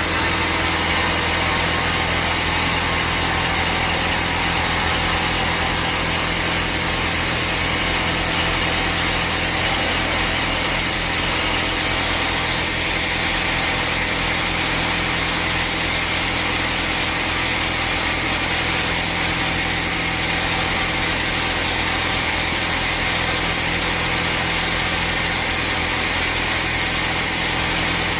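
Sawmill bandsaw machinery running steadily, a constant low mechanical hum under a hiss.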